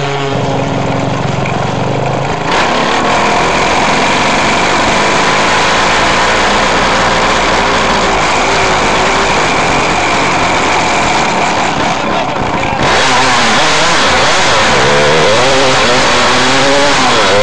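Formula 5 race car's engine heard from an onboard camera as the car drives off at low speed. It gets louder about two and a half seconds in and again at about thirteen seconds, and the engine note rises and falls near the end.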